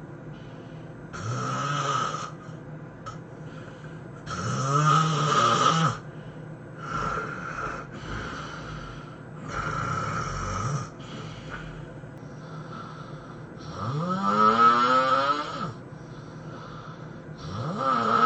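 A person snoring loudly: six long snores about three seconds apart, with the louder ones gliding up in pitch as each breath goes on.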